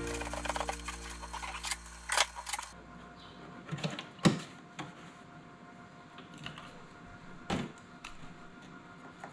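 The tail of background music, a held chord that fades out about three seconds in. Then faint handling of hard plastic: a plastic milk jug and a red poultry drinker cup being fitted together, with a sharp knock about four seconds in and another a few seconds later.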